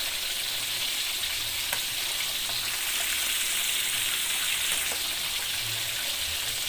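Whole catfish deep-frying in a wok of hot oil: a steady sizzle with a few small pops.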